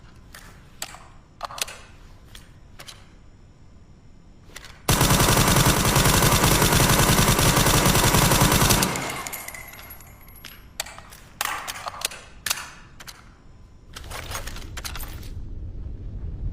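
SIG Sauer MCX Virtus with a Midwest Industries suppressor firing one long automatic burst of about four seconds, shots coming too fast to count. The burst is set among a few scattered short, sharp cracks and clicks before and after it.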